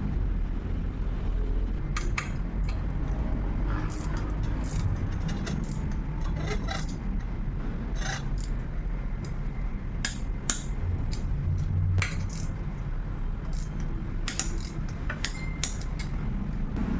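Scattered metallic clinks and scrapes of tools and bicycle parts being handled during a bike build, over a steady low hum.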